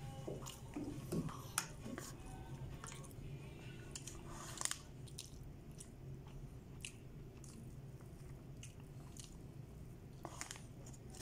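Close-up eating: chewing and biting rice and chicken, with scattered short clicks and crackles, over a faint steady low hum.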